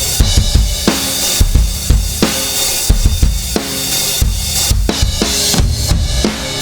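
A drum kit playing a steady groove of kick, snare and cymbals, run through the KIIVE XTMax compressor plugin, which holds it at a fixed ratio of about 20:1. This is heavy compression that works more like limiting. The attack and release settings shape how the drums are squashed.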